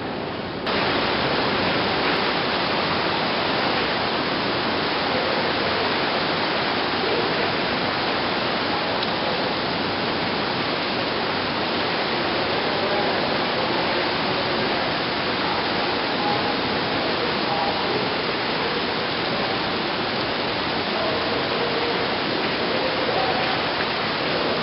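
Heavy thunderstorm rain pouring down as a steady, dense hiss, which gets suddenly louder about a second in.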